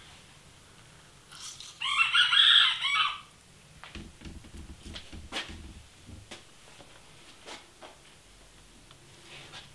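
A rooster crows once, loudly, about two seconds in, one call of a little over a second. Afterwards come scattered light clicks and taps of hands squeezing a lemon over a stainless steel bowl.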